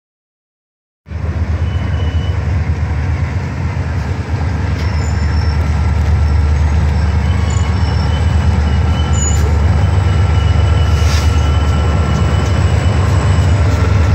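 Diesel-electric freight locomotives passing close by. Their engines make a steady, deep rumble that starts suddenly about a second in and grows slowly louder, with faint thin high squeals from the wheels on the rails.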